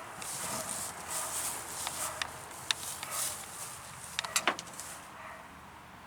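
A handheld spray bottle squirting rust treatment onto bare metal: several short hissing sprays in the first few seconds. A few sharp clicks and knocks come through the middle.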